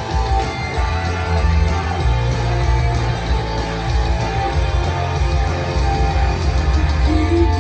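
Loud rock music with guitar and heavy bass and drums, without vocals in this stretch; singing comes in near the end.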